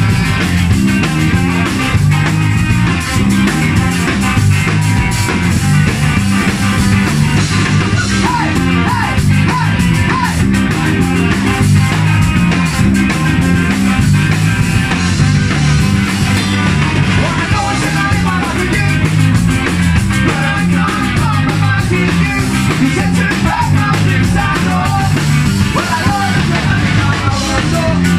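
Ska-punk band playing live and loud: guitar, electric bass and drum kit driving a fast steady beat.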